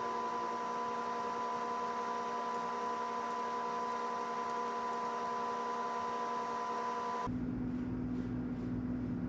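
A steady electrical hum with a faint hiss, which cuts off suddenly about seven seconds in; after that, a lower hum with faint rustles about two a second.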